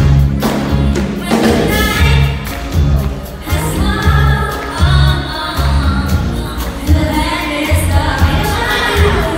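Live pop vocal performance: a trio of young singers singing in harmony into microphones over loud music with a heavy, pulsing bass.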